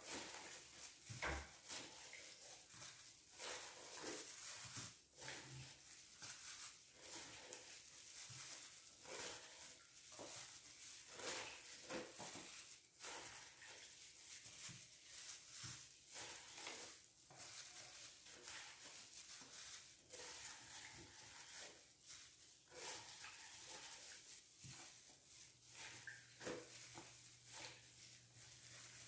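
Faint, irregular handling sounds of white cheese being repacked: a plastic-gloved hand dipping into brine in a plastic bucket, lifting out cheese cubes and setting them into plastic tubs, with small wet splashes, glove rustles and light plastic taps.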